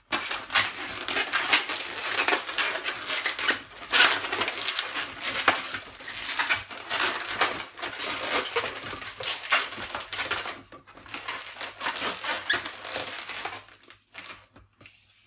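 Latex modelling balloons being twisted and handled: a dense, irregular run of rubbery squeaks and rubbing that thins out over the last couple of seconds.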